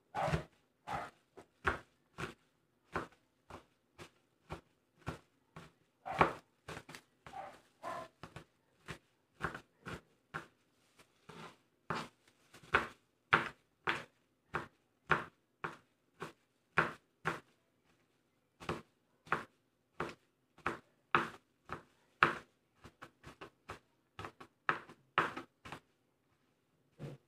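Kitchen knife chopping garlic on a cutting board: a steady run of short, sharp knocks at an uneven pace of about one to two a second.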